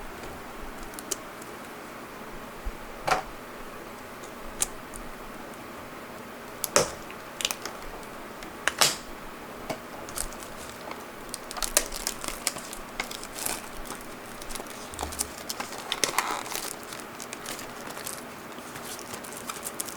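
Paper wrapping being torn and crumpled off a product box: scattered crinkles, rips and handling clicks, sparse at first and busier through the second half.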